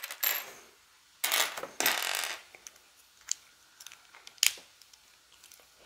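Small plastic LEGO pieces clicking and clattering as they are handled and pressed into place: a few short clatters in the first two seconds, then scattered single clicks.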